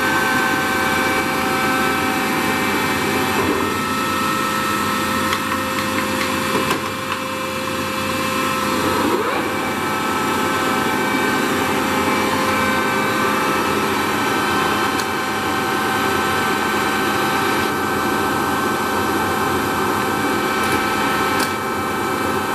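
Toolmex TUR 560 M engine lathe running: a steady mechanical drone from the motor and geared drive with several constant whining tones. About nine seconds in, a tone glides upward and one of the whines drops out.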